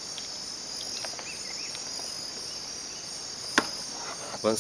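Insects chirring steadily in a high-pitched drone, with a single sharp click about three and a half seconds in and a few faint ticks of handling before it.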